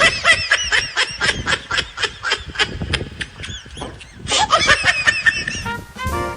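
A rapid run of short, high-pitched cackling calls, like laughter, several a second. Swing music with brass comes in suddenly near the end.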